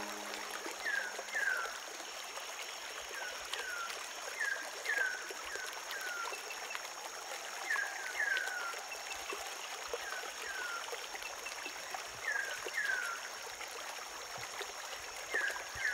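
Rainforest river ambience: a bird repeats a pair of short, falling whistles every couple of seconds, over a steady high insect drone and soft sounds of moving water.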